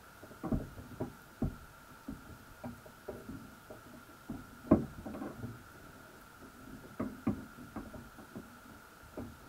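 Irregular dull knocks and clunks heard underwater through a camera housing set in a crab pot, about a dozen, the loudest nearly five seconds in, over a steady high-pitched tone.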